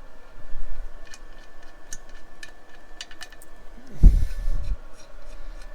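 Scattered light clicks and taps of hand tools and metal parts being handled on a workbench engine job, with one dull thump about four seconds in.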